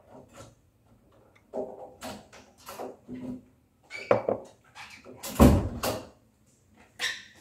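A person sneezing once, loudly, about two-thirds of the way in, with a smaller burst right after. Scattered soft knocks and clatter come before it.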